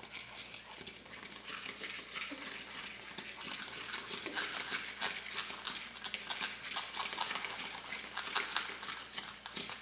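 A utensil stirring hand soap in a container, making rapid, irregular clicking and scraping against the container's sides and bottom.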